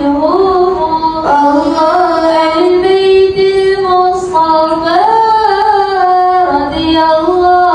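Female voice singing a sholawat, an Islamic devotional song, into a microphone without accompaniment: long held notes joined by sliding, ornamented turns.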